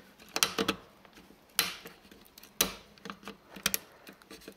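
Plastic keys of an Elektronika MK-44 calculator keyboard clicking and snapping as a small metal tool pries at them to get out the silver-plated key contacts. It is a handful of sharp clicks at uneven spacing, the loudest about one and a half and two and a half seconds in.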